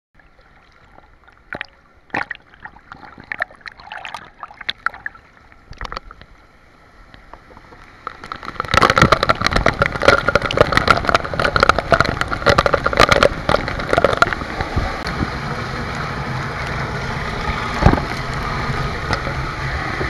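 Light splashes and drips of swimming water close to the camera, then, about eight seconds in, the loud rush of a waterfall close by with water spattering hard on the camera, settling into a steady rush of falling water from about fifteen seconds in.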